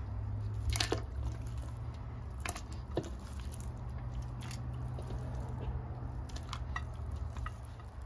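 Large stockpot of pork and water heating on the stove: a steady low hum with scattered small ticks and pops.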